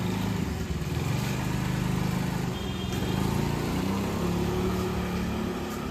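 Motor scooter's small engine running at low speed, its pitch shifting a little as it rides along.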